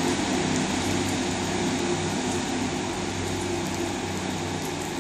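Class 150 Sprinter diesel multiple unit's underfloor diesel engines running with a steady note as the train pulls away from the platform, slowly fading.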